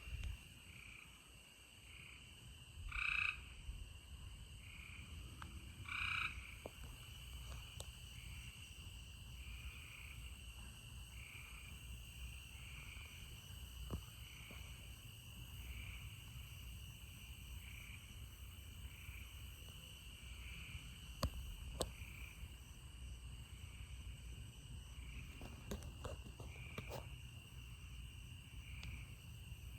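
Frogs calling: a faint steady high trill with a short call repeating a little more than once a second, and two louder calls about three and six seconds in. A few sharp clicks late on.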